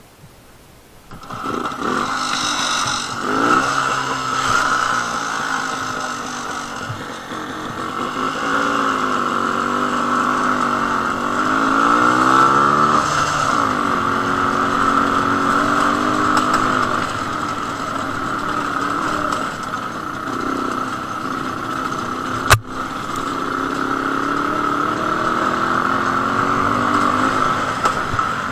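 A Jawa 250/353's single-cylinder two-stroke engine running on the move, heard through a helmet-mounted camera, its pitch rising and falling with the throttle. The sound comes in about a second in, and one sharp knock sounds about three-quarters of the way through.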